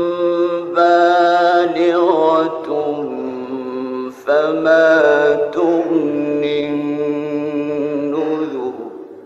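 A man's voice chanting Quran recitation in the melodic mujawwad style, drawing out long ornamented notes. It comes in two phrases, with a short breath about four seconds in, and the second phrase trails off near the end.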